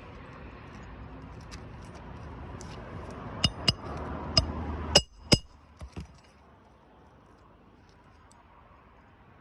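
About seven sharp metallic clinks and taps in under three seconds, over a steady rumble that cuts off suddenly about five seconds in.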